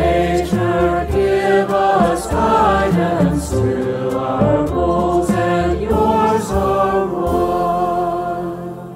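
A choir of mixed voices singing a hymn with piano, drum kit and double bass. The final line ends on a held chord that fades out near the end.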